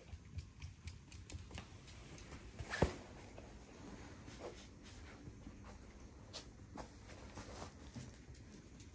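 Scattered light taps and clicks, with one sharper knock about three seconds in.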